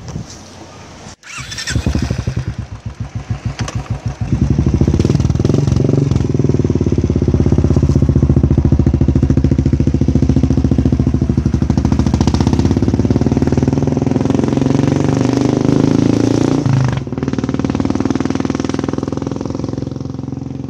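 Royal Enfield Classic 350's single-cylinder engine through an aftermarket Bazooka exhaust. From about two seconds in it gives a slow, separate thump. About four seconds in it gets loud as the bike pulls away. There is a brief dip near the end, and then it fades as the bike rides off.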